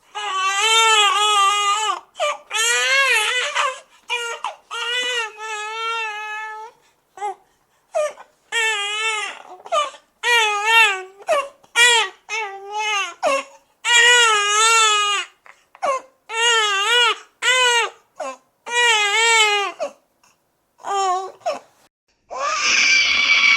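Newborn baby crying: a run of wailing cries, each lasting about half a second to two seconds, with short breaths between them. Near the end a harsher, noisier cry begins.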